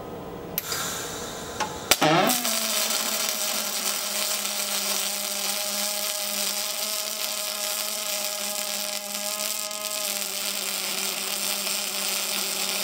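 Pulsed MIG welding arc from a Lincoln Electric Flextec 500X with a PF42 wire feeder, running 1.2 ER70S6 steel wire in 90/10 mixed gas. The arc strikes with a sharp click about two seconds in, then runs as a steady, even buzz with a constant pitched hum: the sound of pulse mode.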